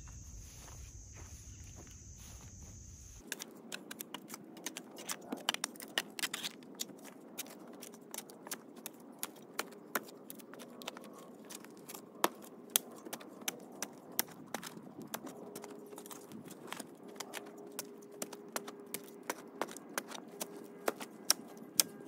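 Crickets chirping steadily at first. About three seconds in, that gives way to a shovel digging into dirt: the blade cuts, scrapes and knocks against soil and stones in many irregular sharp clicks.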